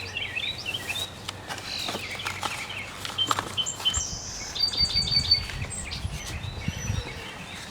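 Small birds chirping, with quick runs of repeated high notes about halfway through. Light clicks and knocks come in between.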